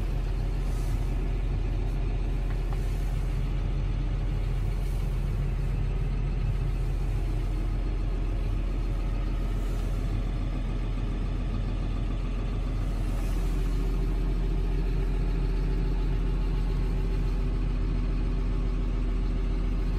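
John Deere 7430 tractor's six-cylinder diesel engine idling steadily, heard from inside the closed cab. About 13 seconds in, the drone gets a little louder and a steady hum is added.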